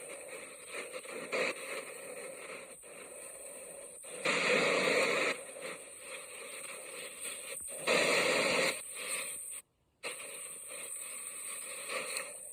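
Sea waves: a steady, hissing wash of surf, with two sudden louder surges about four and eight seconds in and a brief dropout to silence near ten seconds.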